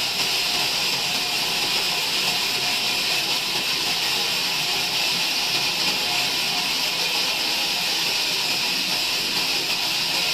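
Sawmill bandsaw cutting through a log: a steady, even hiss that does not change.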